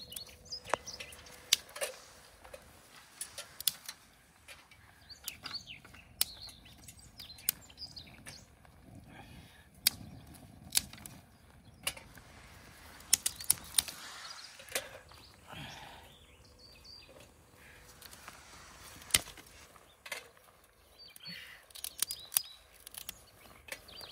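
Scattered sharp clicks and knocks with soft rustles in between: camp gear being handled while a small battery-fan turbo camp stove is set up for tea.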